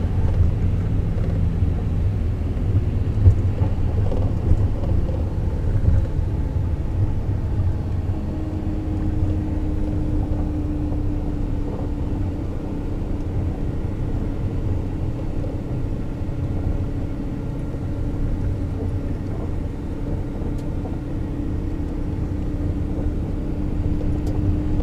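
Moving bus heard from inside: a steady low rumble of engine and road noise, with a faint steady whine joining about a third of the way in.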